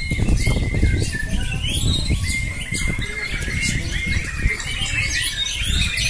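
White-rumped shamas (murai batu) singing over one another in competition: a dense, unbroken run of chirps, trills and whistles, including one held whistle, over a low rumble.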